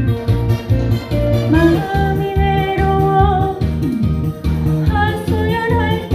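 A trot song: a singer holds long notes with vibrato, starting about one and a half seconds in and again near the end, over a band with guitar and a steady bass beat.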